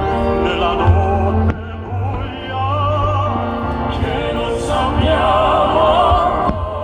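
Operatic singing with a wide vibrato over sustained orchestral accompaniment.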